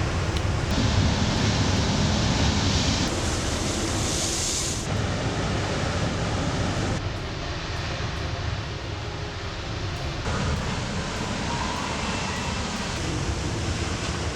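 Storm waves crashing on the coast: a steady rush of heavy surf with wind, whose tone shifts abruptly several times.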